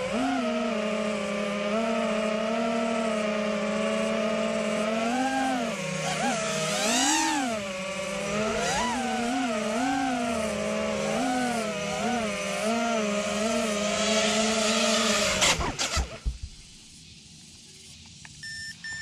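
Small FPV racing quadcopter's brushless motors whining, the pitch swooping up and down with each throttle punch during freestyle flying. About sixteen seconds in the whine cuts off with a few sharp clicks as the quad lands and disarms. A short beep sounds near the end.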